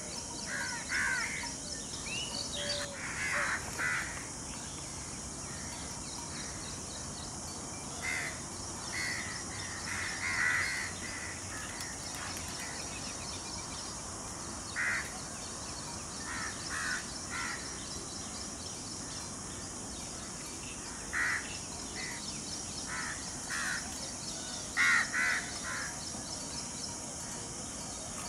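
Harsh, caw-like animal calls in short runs of two to four, coming every few seconds and loudest near the end, over a steady high-pitched hiss.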